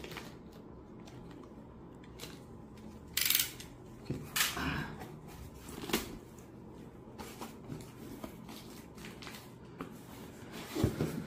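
Handling of a drone's cardboard box and packaging: rustling and scraping, with short louder scrapes about three, four and a half and six seconds in, and small clicks after.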